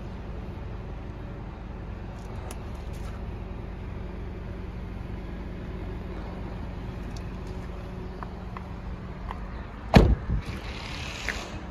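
Steady low hum from the idling van, then the front door of a 2007 Nissan Serena minivan swung shut with one loud thump about ten seconds in, followed by a lighter knock.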